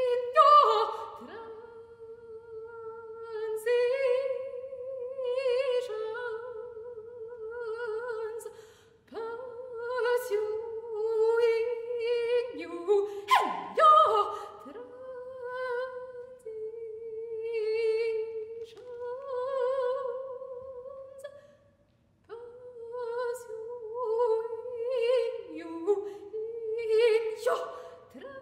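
A solo soprano voice singing contemporary vocal music a cappella, holding long notes near one pitch with a wide vibrato. The notes are broken by sharp consonant clicks and short downward slides, with brief breaks about nine and twenty-two seconds in.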